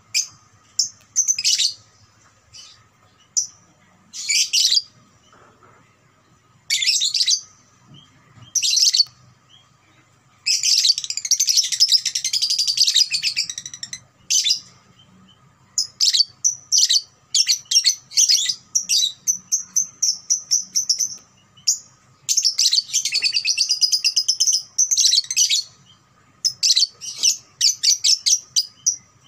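Young Fischer's lovebird, about two and a half months old, singing in high chirps. It breaks twice into long unbroken chattering trills (ngekek), about a third of the way in and again about three quarters through, with runs of rapid chirps between.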